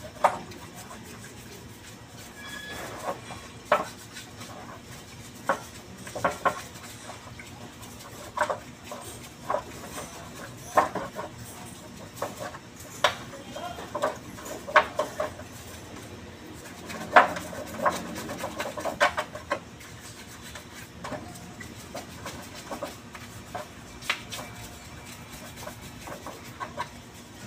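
Irregular clinks, knocks and light scrapes of forklift starter motor parts being handled in a metal tray, with a busier run of knocks about two-thirds of the way through.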